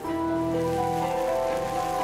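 Background music: several held notes sounding together, shifting to new pitches every half second or so, over a soft even hiss. The music gets louder right at the start.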